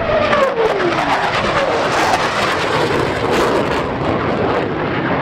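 Military jet aircraft making a low, fast pass: a loud jet roar with crackling, its tone dropping in pitch during the first second or two as it goes by.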